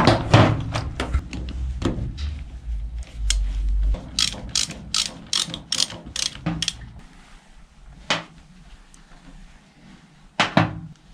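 Small metal parts clinking and rattling in a plastic tray as a hand rummages through them, with a quick run of sharp clicks, about three a second, in the middle and a louder knock near the end.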